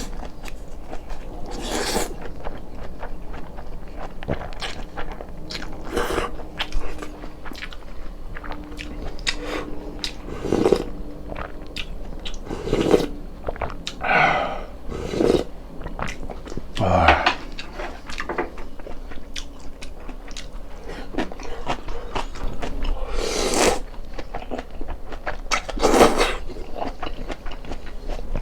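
Close-miked eating sounds: a person chewing and biting food, with irregular wet clicks and smacks and a few louder bursts.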